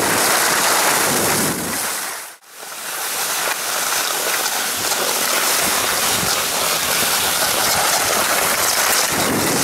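Steady rushing hiss of outdoor movement on a ski slope, typical of wind on the microphone and skis sliding over snow. The sound drops out briefly about two and a half seconds in, then resumes.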